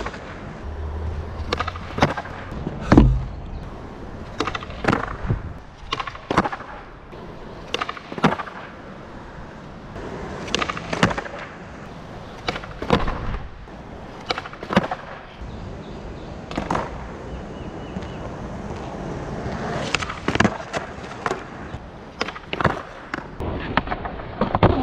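Skateboard rolling on a hard court surface, with repeated sharp tail pops and board-and-wheel landings as flatground flip tricks are tried; one heavier thump comes about three seconds in.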